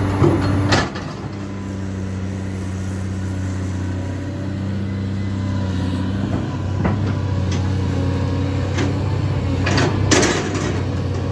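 Heavy earthmoving machine's diesel engine running steadily under load, with a few sharp knocks: one about a second in, one about two-thirds of the way through, and the loudest near the end.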